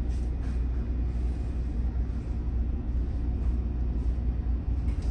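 Steady low rumble aboard a ship under way during docking, with no distinct events.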